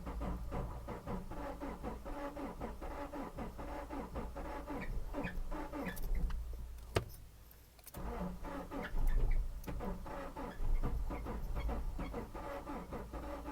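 2011 Subaru Forester's 2.5-litre four-cylinder boxer engine cranking on the starter without catching, in two long attempts with a click and a short pause about seven seconds in. It is a crank-no-start that the mechanic suspects comes from the engine being out of time.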